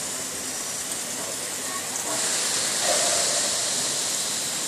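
Factory assembly-hall noise: a steady hiss that grows louder about halfway through for a couple of seconds, under faint voices.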